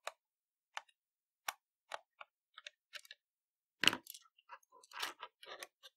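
Scattered small clicks and ticks of a Phillips screwdriver loosening a tiny screw in the plastic underside of a computer mouse, with the plastic casing being handled. The sharpest click comes about four seconds in, followed by a quicker run of light clicks and scrapes.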